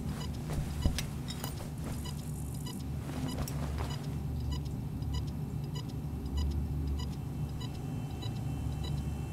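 Designed machine-room ambience: a steady low electrical hum with faint, regular electronic ticks. A run of metallic clicks and clanks comes in the first few seconds, the loudest a sharp knock about a second in.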